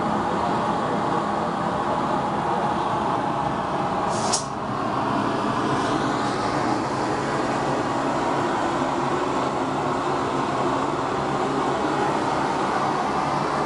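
Steady roar of forging-shop equipment with the propane forge lit, with one sharp metallic clank just over four seconds in.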